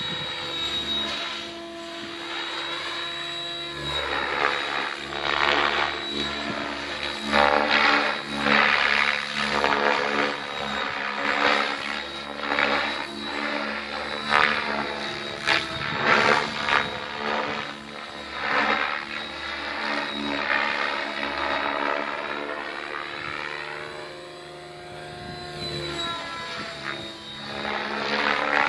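Mikado Logo 600 SX electric radio-controlled helicopter flying aerobatics: motor whine and rotor-blade swish, growing louder and softer over and over as it swoops, climbs and turns.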